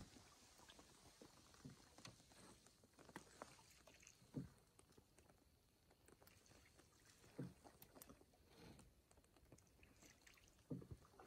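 Quiet canoe paddling on calm water: soft low paddle strokes about every three seconds, with small drips and ticks between.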